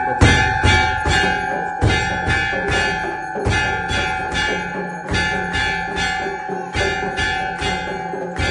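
Hindu temple bells rung steadily for aarti, about two strokes a second over a continuous ringing tone, with a low thump on many of the strokes.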